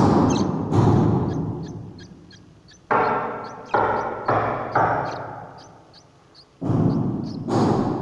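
Background music: loud struck notes that start sharply and fade over a second or two, some held with a clear pitch, over a light, regular high ticking beat.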